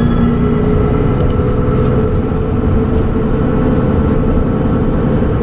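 Dennis Trident double-decker bus running under way, with a low engine rumble and a steady high turbo whistle held throughout.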